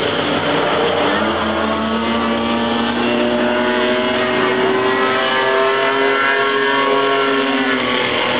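Engines of several pure stock race cars running at racing speed around an oval, their pitch rising and falling as the cars accelerate and go past.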